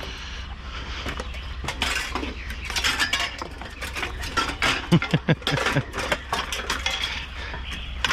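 Scrap metal clanking and rattling as a discarded item is pulled apart and pieces are shifted into place on a trailer: a run of clinks and knocks, loudest in a cluster of heavy knocks about five seconds in.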